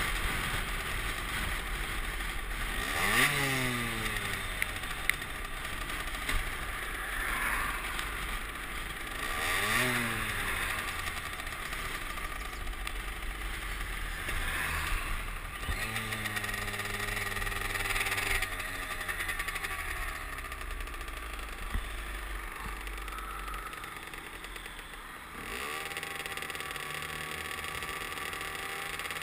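Derbi Senda moped engine running under the rider, its revs rising and dropping sharply twice in the first ten seconds, then holding steadier notes, over a steady rush of road noise.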